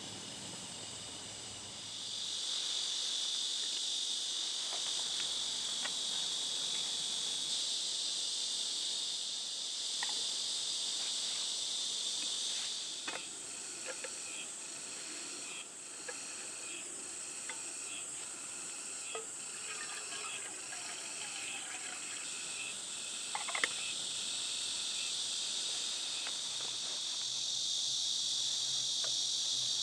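Insects trilling in a steady, high-pitched chorus. Through the middle stretch, another insect adds an evenly pulsing chirp, and a few faint clicks and knocks sound now and then.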